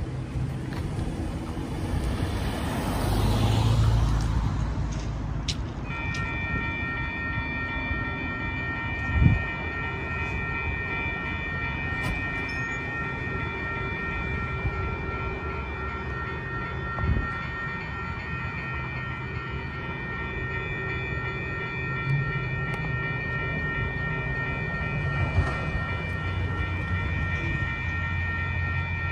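A car drives past, then about six seconds in a railroad crossing's warning bell starts ringing and keeps ringing steadily, the signal that a train is approaching. Two dull thumps sound in between.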